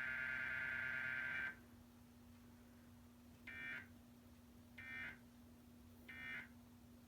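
Emergency Alert System audio: a steady electronic alert tone cuts off about a second and a half in. Three short data squawks follow, about a second apart: the digital End of Message code that closes an EAS alert.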